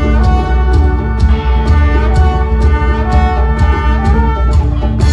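A live band playing together: a brass quintet of trumpets, French horn, trombone and tuba, with an electric guitar and an ATV aDrums artist electronic drum kit keeping a steady beat under held brass notes.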